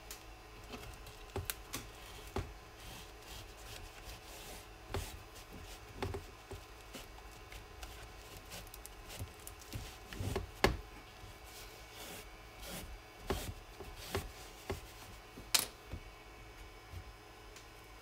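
Hands fitting foam into a 3D-printed plastic dash bezel: soft rubbing with scattered light taps and clicks, and two sharper clicks, one a little past halfway and one near the end.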